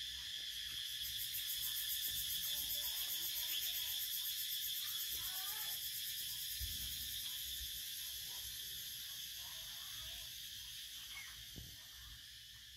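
Steady outdoor insect chorus, a high shrill buzz with a rapid pulse, fading somewhat toward the end. Faint short chirps and one soft low thump midway.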